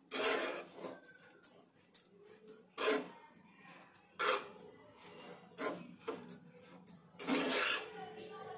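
A metal spoon stirring and scraping dry poha (flattened rice) around a pan, in five separate strokes; the longest come at the start and near the end.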